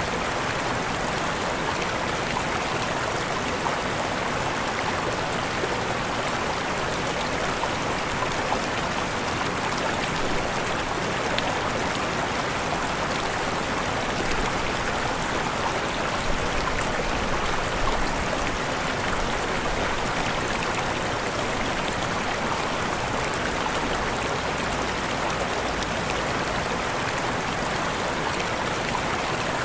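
Waterfall: steady rushing water.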